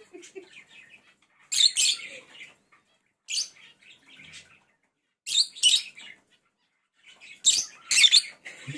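Pet lovebirds chirping in four short, shrill bursts a second or two apart, with softer twittering in between.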